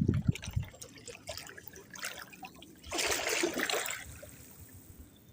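Canoe paddle working in canal water: a few low thumps at the start, then water splashing and trickling off the blade for about a second, three seconds in.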